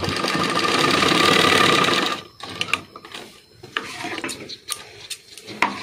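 Electric-motor-driven Rover sewing machine stitching at speed for about two seconds, then stopping suddenly: a test seam after adjusting the thread tension. A few light clicks follow as the cloth and thread are handled.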